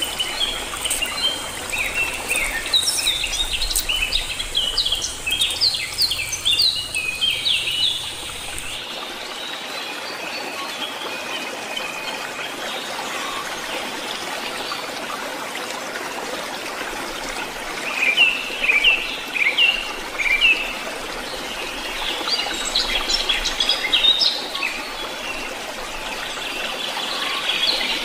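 Wild birds chirping in clusters of short, quick notes, loudest near the two-thirds mark, over a steady background hiss that changes abruptly about nine seconds in.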